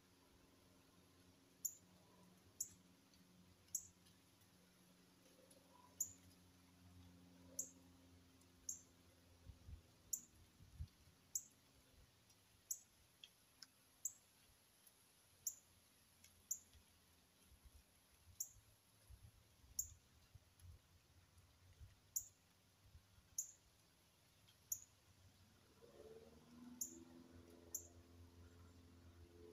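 Northern cardinal giving sharp, high chip notes, each a short falling note, repeated irregularly about once a second.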